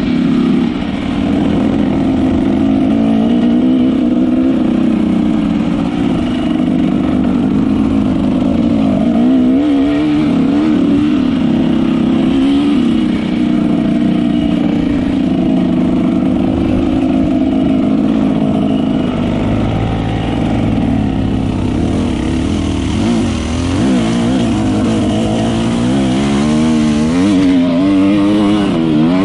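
Dirt bike engine running while ridden, its revs rising and falling continually.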